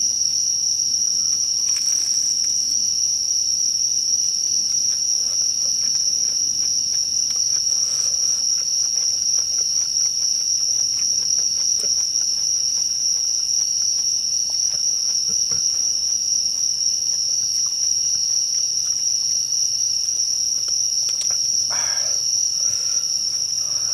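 Night-time chorus of crickets: an unbroken, steady high-pitched trill.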